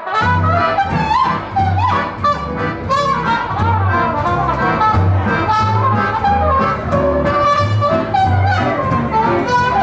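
Live swing band playing 1940s-style jazz dance music, with brass horns, trumpet and trombone, carrying the tune over a steady bass line.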